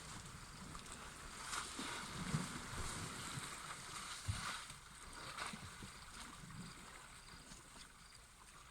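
Elephants wading and splashing in a dam: faint sloshing and splashing of water, with a couple of soft low thumps in the first half, fading near the end.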